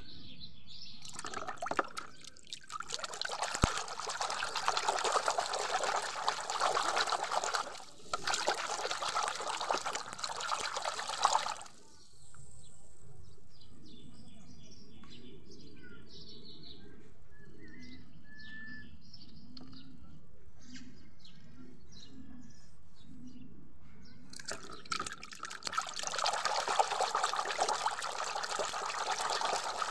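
Water splashing and sloshing in a plastic basin of soapy water as hands swish and scrub a plastic toy animal in it. The splashing runs in two stretches, with a quieter break in the middle.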